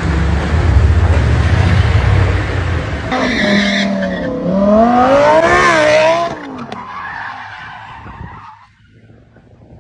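A car engine running with a low rumble, then a sports car's engine revving hard, its pitch rising and falling, with tyres skidding as the car slides out of control. The sound drops away about six seconds in and fades over the last couple of seconds.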